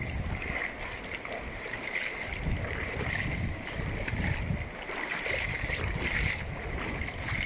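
River water running steadily, with gusts of wind buffeting the microphone.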